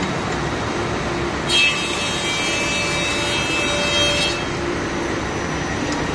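Woodworking machine running steadily; about one and a half seconds in, a piece of wood goes through the cutters, adding a high whine with several steady tones for about three seconds before the machine runs free again.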